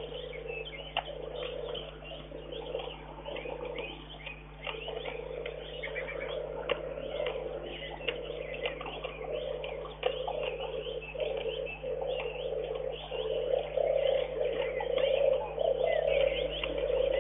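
Wild birds singing and chirping in a dense chorus of many short calls, over a lower, wavering sound that grows louder near the end.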